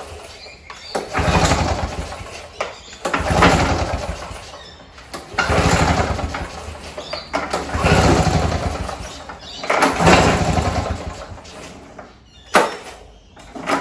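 Victa Turbo Disc two-stroke lawnmower engine being pull-started: five pulls on the recoil starter cord about two seconds apart, each cranking the engine over briefly without it firing, then a sharp knock near the end. The engine won't start, which the owner puts down to a possible lack of spark.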